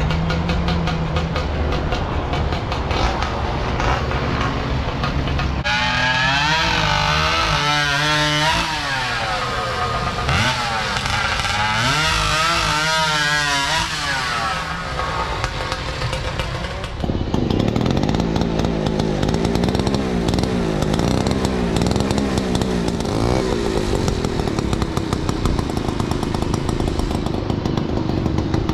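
Antique chainsaw engine running, revved up and down several times in quick rising-and-falling sweeps. About two-thirds of the way in it gets louder and settles to a lower, wavering pitch.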